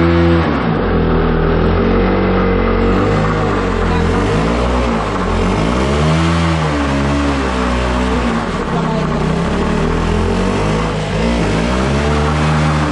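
KTM RC single-cylinder motorcycle engine revved hard again and again, its pitch swinging up and down, during a rear-tyre burnout.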